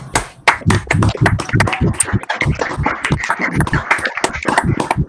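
Hand clapping picked up through a video-call microphone: a run of sharp, uneven claps, about four to five a second.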